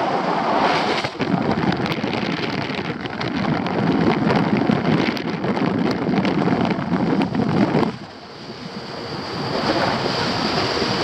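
Wind rushing and buffeting over the camera microphone of a paraglider in flight. It drops off suddenly about eight seconds in, then builds back up.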